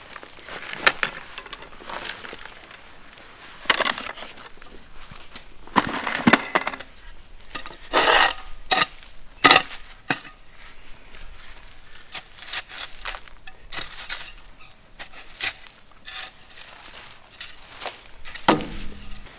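Backfilling a trench by hand: loose soil tipped from a plastic bucket, then a spade scraping and chopping into soil and gravel in a string of irregular strokes. A duller thump comes near the end.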